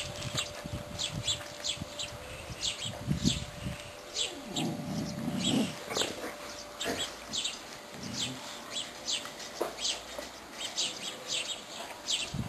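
Small birds chirping repeatedly, a quick run of short high-pitched chirps several times a second, with a soft low rustle about five seconds in.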